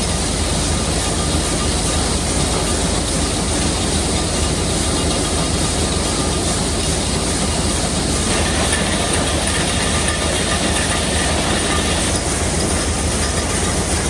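Vintage SuperB grain dryer running steadily while it unloads dried corn into a truck: a loud, even mechanical running noise with no let-up.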